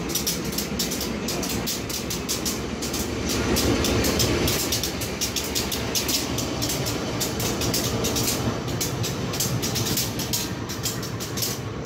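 Passenger train heard from inside the coach: a steady rumble of the running gear with fast clicking and rattling.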